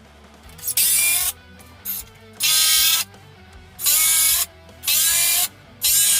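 Power drill run in five short bursts, each spinning up with a rising whine, as it drives screws into wood.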